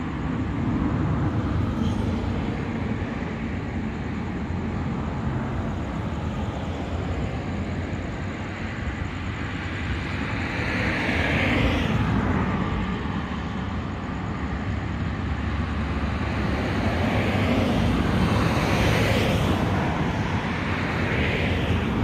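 Road traffic: a steady low rumble with vehicles passing, swelling and fading about halfway through and twice more near the end.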